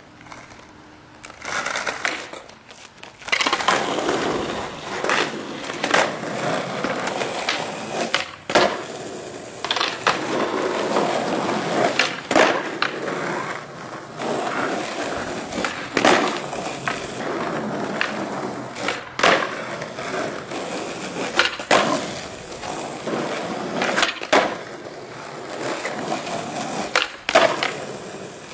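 Skateboard rolling on rough asphalt, with repeated sharp clacks of the tail popping and the board slapping down on landings as flat-ground tricks are tried over and over.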